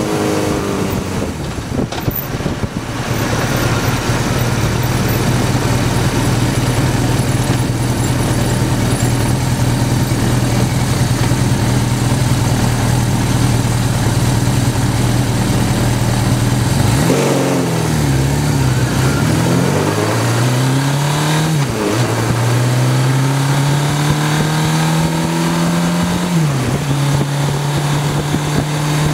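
1983 Suzuki GS1100GK's air-cooled inline-four engine running at a steady cruise. A little over halfway through, the revs fall as the bike slows. They then climb again through a run of upshifts, each shift a brief drop in pitch, before settling back to a steady cruise.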